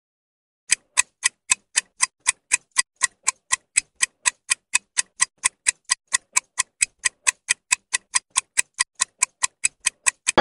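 Clock-ticking sound effect counting down a quiz answer timer: sharp, even ticks about four a second, starting just under a second in.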